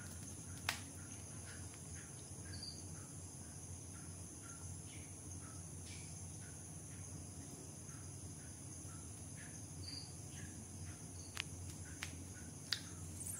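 Quiet room noise: a low hum under a steady high-pitched drone, with a few light clicks as the phone and its USB cable are handled.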